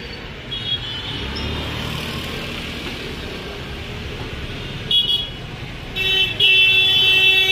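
Street traffic with vehicle horns honking: a short toot just after the start, another brief one about five seconds in, then a long loud horn blast from about six seconds in.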